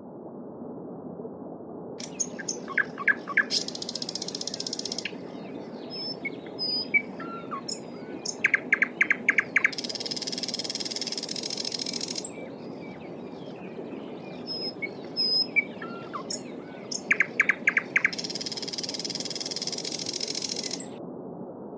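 A stream babbles steadily while a songbird repeats one song three times. Each song is a quick run of sharp clicks leading into a long, high trill, with scattered short chirps between the songs.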